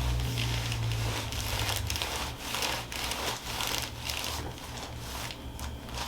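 Rustling and crinkling as bodies shift on a chiropractic treatment table, a run of irregular soft scrapes. A low hum sits under it and fades after about two seconds.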